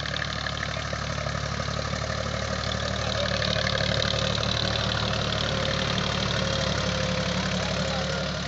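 Deutz-Fahr Agrolux 45 tractor's diesel engine running steadily under load while pulling a cultivator through the soil, a little louder about three seconds in.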